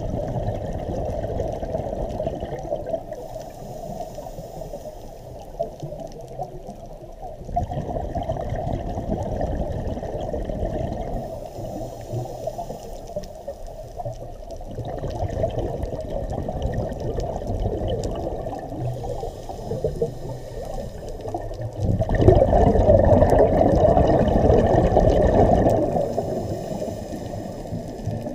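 Scuba diver breathing through a regulator underwater: each exhalation sends a bubbling rush of air out of the exhaust, with quieter inhalations between. Four such exhalations come about seven seconds apart, the last the loudest.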